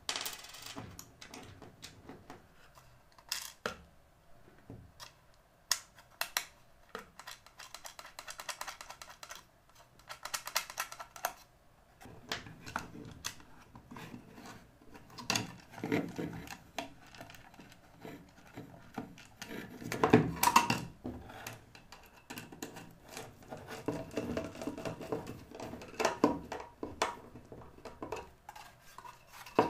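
Hands handling 3D-printed plastic parts and driving small screws with a screwdriver: scattered clicks, taps and short scraping bursts.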